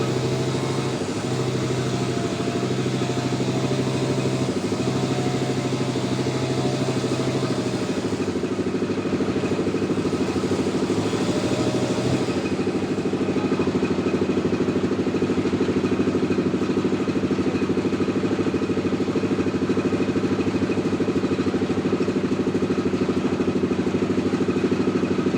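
Engine of a homemade log sawmill running steadily, with a held tone that drops out about halfway and the level rising slightly after.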